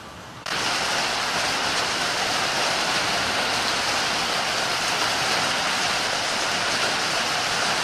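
Steady hiss of rain falling, which starts abruptly about half a second in.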